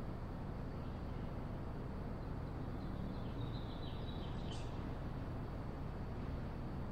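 Steady low background noise of a workshop, with a few faint high chirps around the middle.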